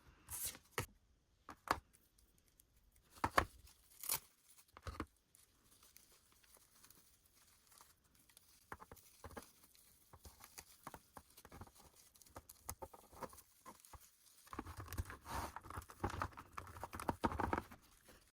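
Doll packaging being handled: several sharp taps and clicks in the first few seconds, then light crinkling and tearing of wrapping that grows denser near the end.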